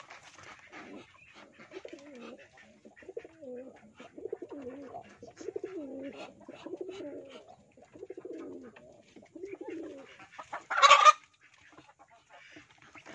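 Domestic pigeons cooing: a long series of low, wavering coos, then a brief loud rustling noise near the end.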